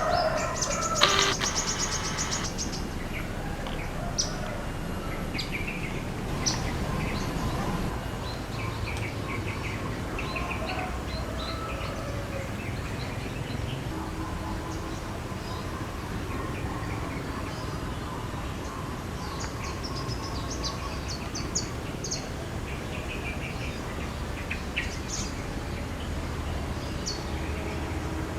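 Small birds chirping and calling on and off, with one louder, longer call about a second in, over a steady low background rumble.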